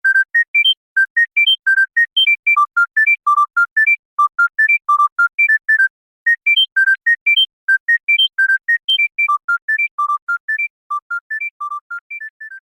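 Smartphone ringtone: a quick melody of short, pure, high beeping notes, about four to five a second, playing its phrase twice with a brief pause between, and fading out near the end.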